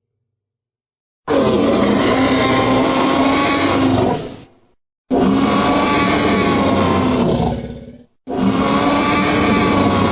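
Stock dinosaur roar sound effect: three long, rough roars, the first starting about a second in, separated by brief silences.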